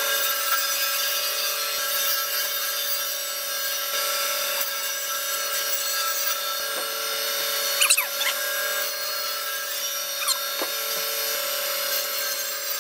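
VEVOR electric meat band saw running steadily, its blade cutting through a bone-in beef rib section. A couple of brief squeals come through about eight and ten seconds in.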